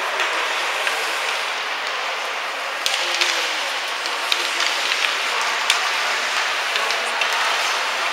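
Ice hockey game in a rink: a steady hiss of skate blades scraping the ice, broken by sharp clacks of sticks and puck, the loudest about three seconds in and another near six seconds.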